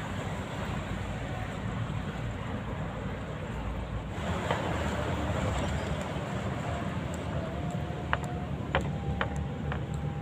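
Steady rumble and hiss of road traffic, with a few sharp clicks near the end.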